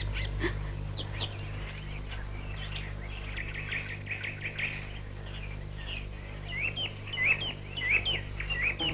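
Small birds chirping throughout, with a run of louder, rising chirps in the last couple of seconds.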